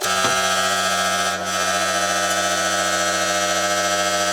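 A machine motor running with a loud, steady hum of several held tones, starting suddenly.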